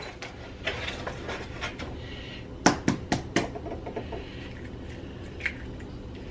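Light clicks and handling noises at a bowl, with a quick run of four sharp taps about two and a half seconds in and one more near the end, as eggs are cracked into pancake-mix batter.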